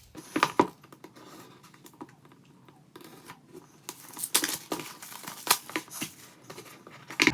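Cardboard product box being opened by hand: the seal tearing, packaging rustling and crinkling, with small scattered clicks and scrapes, and a sharper one near the end.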